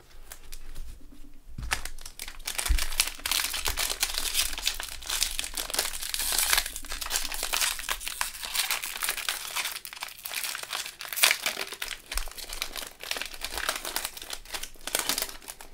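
Crinkling plastic wrapper of a trading card pack being handled and torn open by gloved hands. It is a dense crackle that starts about a second and a half in and keeps going.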